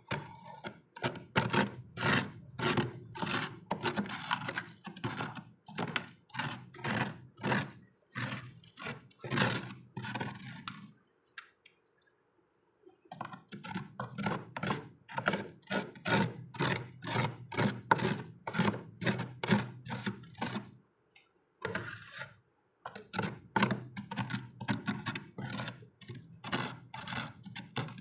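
Plastic spoon scraping thick, soft freezer frost in quick repeated strokes, about two to three a second, with two short pauses.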